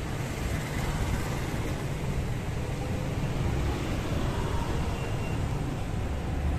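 Steady low rumble of street and traffic noise, with no distinct events.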